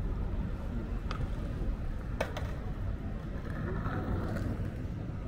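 Busy city street ambience: a steady low rumble of traffic with faint voices of passers-by. Two sharp clicks come close together a little past two seconds in.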